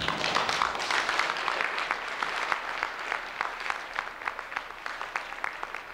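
Audience applauding: a dense patter of hand claps that thins out to scattered claps near the end.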